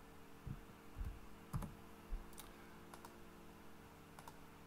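Faint, scattered clicks of a computer keyboard and mouse as numbers are typed into a software field, about eight taps at an irregular pace over a low steady hum.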